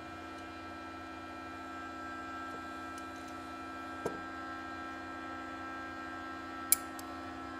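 A steady hum made of several fixed tones, with two faint, sharp metallic clicks from a pliers wrench gripping a threaded fitting on an air blow gun: one about four seconds in and one near the end.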